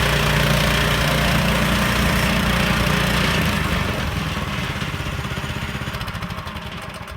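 Sawmill engine running steadily, then shut off about three and a half seconds in and winding down, its beats slowing as it coasts to a stop.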